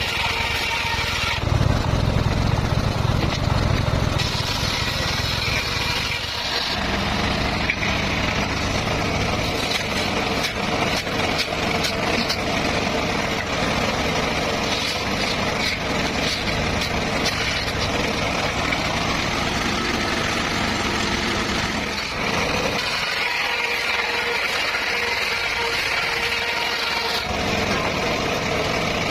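Circular saw running and sawing petung bamboo, a continuous mechanical drone whose tone changes several times, growing heavier in the low end about two seconds in and thinning out near the end.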